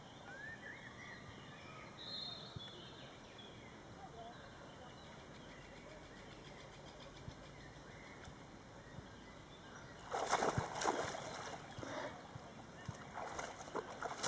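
A Finnish Lapphund wading and pouncing in shallow lake water while hunting fish, sending up loud splashes in two bursts: one about ten seconds in lasting a couple of seconds, and another near the end. Before that the water is quiet, with a few faint bird calls near the start.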